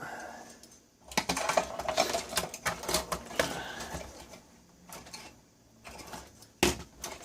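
Clicking and rattling of parts and wiring being handled while an electronic test set is taken apart: a quick run of clicks, then scattered ones, and one sharp knock near the end.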